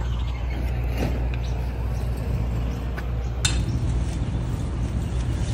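Steady low hum of a running engine, with a few light clinks and one sharp click about three and a half seconds in.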